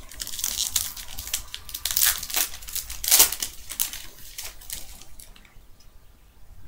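A foil trading-card pack wrapper (2012 Panini Prestige) being torn open and crinkled in the hands. A dense run of crackles peaks about three seconds in and dies down after about five seconds.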